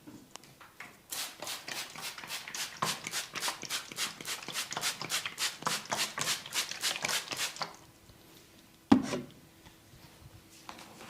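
Massage tapping with the hands on skin: a fast even run of slaps, about five a second, for some six seconds. About nine seconds in comes a single louder smack.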